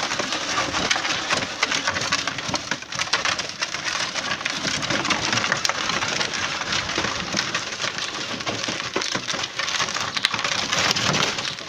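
Hard plastic wheels of a toy ride-on pickup truck crunching and rattling over gravelly dirt as the truck is towed by a rope, a continuous crackle of many small clicks.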